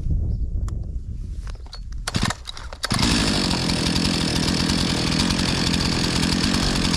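Gasoline chainsaw pull-started: a few knocks and pulls, then about three seconds in the engine catches and runs steadily at a fast cold idle, with the chain spinning because the saw is still cold.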